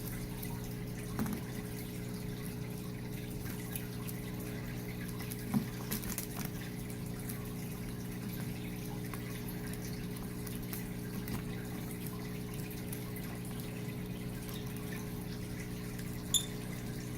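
Steady low hum under faint clicks and light splashes from lovebirds bathing in a bowl of water, with one short high chirp from a lovebird near the end.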